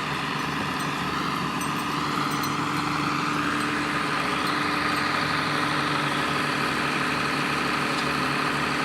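A steady mechanical hum with a few fixed tones, like an engine idling, over a constant noisy background.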